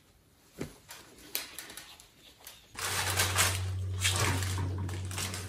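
A few light knocks, then from about three seconds in, masking tape being peeled off a truck cab's drip rail with a continuous crackle, over a steady low electrical hum.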